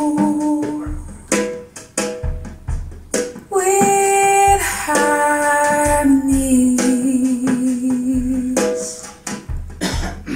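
Female jazz vocal with long held notes over a plucked-string accompaniment, played back over a hi-fi system of Carver tube amplifiers and tower loudspeakers in a small room.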